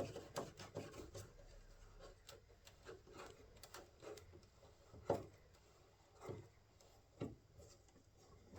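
Faint handling sounds of a side skirt being worked off a car body: scattered light clicks and taps with some rubbing, and a few sharper knocks about five, six and seven seconds in.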